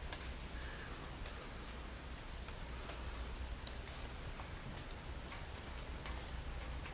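Insects calling in a steady, high, unbroken buzz over a faint low hum.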